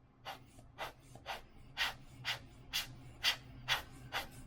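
Trading cards being flipped through a stack one by one: a quick, even run of short papery swishes, about two a second, with a low steady hum beneath.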